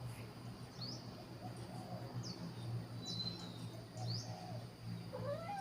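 A small bird chirping: four short, high chirps, each sweeping downward in pitch, spaced about a second apart, over a steady low hum.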